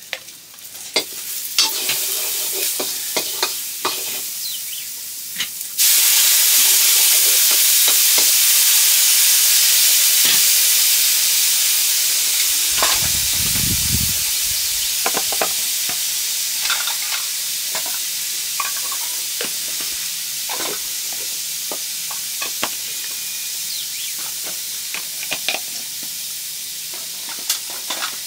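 Food frying in hot oil in a pan: a steady sizzle that jumps suddenly much louder about six seconds in, then slowly fades, while a utensil stirs and scrapes against the pan in short clicks.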